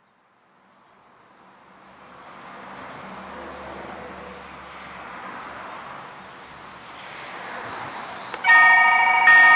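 Road traffic passing, its noise swelling and fading. Then, about eight and a half seconds in, a railroad level crossing's warning bell starts ringing loudly, struck twice with strokes just under a second apart.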